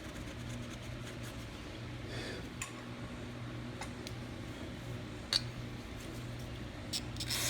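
A few light clicks and taps of small carburetor parts being handled, the sharpest about five seconds in, over a steady low hum.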